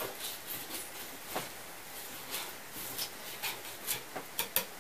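Fillet knife cutting along a northern pike's backbone: faint, irregular scraping and ticking as the blade rides the spine, with two sharper clicks near the end.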